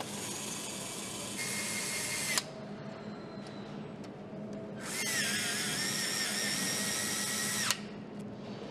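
Handheld power screwdriver driving bolts into a motorcycle engine mount: two runs of a high whine of about two and a half seconds each, the first stepping up in pitch partway through, the second wavering, each ending in a sharp click.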